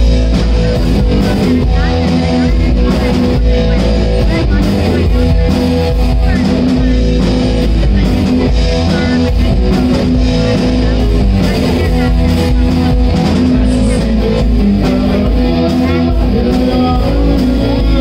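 Three-piece rock band playing live: electric guitar, electric bass and drum kit, loud and steady throughout.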